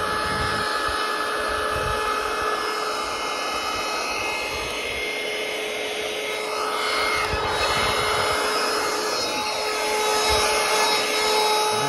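A small electric motor runs steadily, a high whine over rushing air, from a handheld vacuum cleaner.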